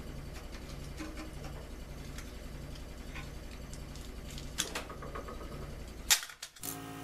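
Small clicks and rubs of hands working a rope gasket into a wood stove door's channel, over a steady low hum that pulses two or three times a second. A louder click comes about four and a half seconds in and the sharpest about six seconds in, then the hum cuts off abruptly.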